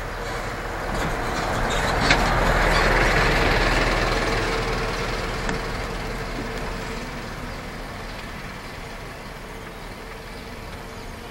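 Golf cart driving along a road: a rush of vehicle noise swells over the first few seconds and fades slowly, over a faint steady whine. There is one sharp click about two seconds in.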